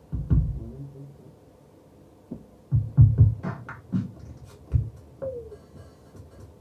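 Electronic drum-machine beat: deep kick-drum thumps and sharp snare-like hits, with a gap of about two seconds after the first hit. A short falling synth tone comes about five seconds in.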